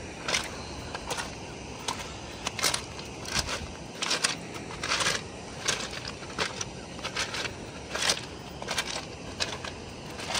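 Footsteps crunching on loose gravel at a steady walking pace, about one step every three-quarters of a second.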